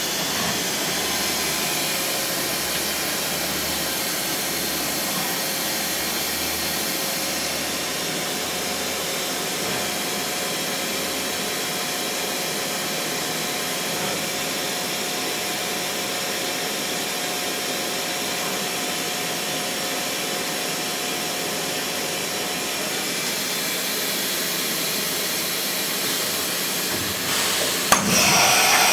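Trak TMC7 vertical machining center running, a steady hissing machine noise with faint steady tones. Near the end a sharp click is followed by a louder hiss.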